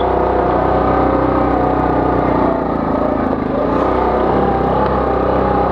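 Yamaha 700 ATV engine running at a steady, moderate speed while riding, its pitch sagging slightly and recovering about three seconds in.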